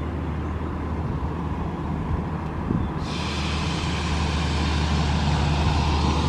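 A road vehicle approaching: a steady low rumble, with tyre hiss that sets in about halfway through and grows louder.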